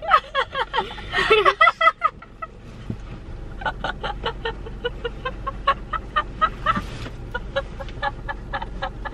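Two women laughing hard. A burst of high, breathy laughter is followed by a long run of short cackling pulses, several a second.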